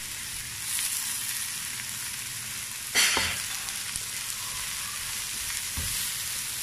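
Chopped carrots and beans sizzling in ghee in a nonstick pan while a wooden spatula stirs them. The stirring is briefly louder about three seconds in.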